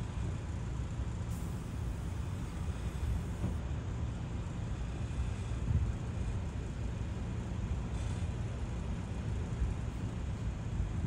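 Steady low rumble of motor-vehicle traffic and engines running, with no single event standing out.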